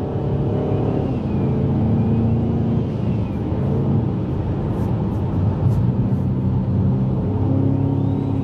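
Turbocharged Ford Mustang GT 5.0 V8 engine running hard at speed. Its pitch drops about a second in, holds, then climbs again near the end.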